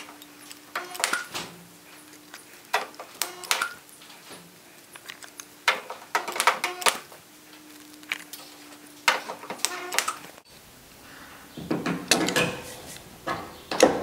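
Stud welder gun spot-welding pull studs onto the bare steel of a 1966 Ford Mustang's roof panel: four groups of short sharp snaps over a faint steady hum. Near the end come two louder bursts of metallic knocking and rattling.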